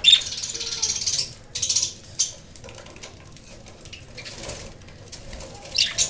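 Budgerigars chattering in short, harsh, high-pitched bursts of chirps. The loudest stretch is in the first second, with another cluster near the end.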